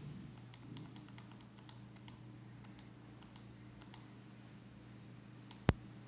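Small buttons on a digital alarm clock being pressed: a run of light clicks for the first four seconds or so, then one sharp, much louder click near the end.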